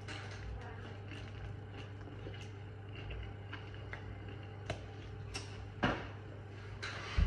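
Crispy fried spring roll pastry crackling softly as it is chewed and pulled apart by hand, small scattered crunches over a low steady hum, with a few sharper knocks in the second half.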